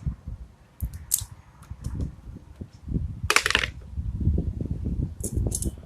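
Scattered metallic clicks and clinks of hand tools and engine parts being handled, with low knocks, a short hiss about three seconds in and two brief hisses near the end.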